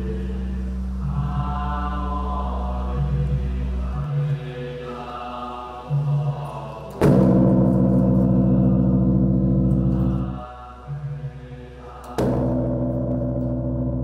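Large Buddhist temple bell, the Fa-hua bell, struck twice by a swinging wooden log, about five seconds apart. Each strike rings on in a long, deep, humming tone. These are strokes of the 108 rung to usher in the Lunar New Year.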